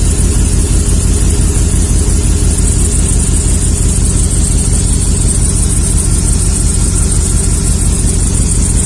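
Chevy 5.3-litre V8 idling steadily while it runs on injector cleaner, with a steady high hiss above the engine. The engine is misfiring on cylinder 4, whose injector flows too little fuel.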